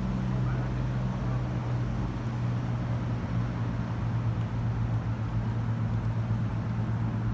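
An engine running steadily at idle: a low, even hum with a faint throb.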